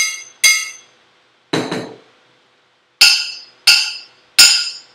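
Tap test on two cookware pans, an All-Clad and a seven-layer Kitchen Craft, struck in turn to compare how they ring. Two ringing metallic taps come at the start, a duller knock about a second and a half in, then three sharp taps near the end.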